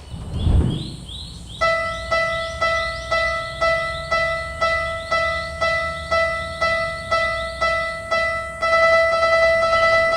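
A low thud, then a level-crossing alarm bell ringing about two strikes a second, each strike a bright ringing tone that dies away. Near the end the strikes merge into one steady held tone.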